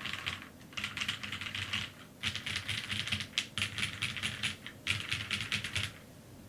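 Mechanical keyboard with lubed vintage Cherry MX Black linear switches, an aluminium plate and GMK keycaps, typed on fast in several bursts of rapid keystrokes with short pauses between them. The typing stops near the end.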